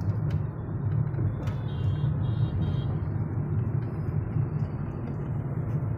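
Steady in-cabin drone of a Hyundai Grand i10 Nios cruising at about 46 km/h, engine and tyre noise together, the engine freshly rebuilt and on its road test.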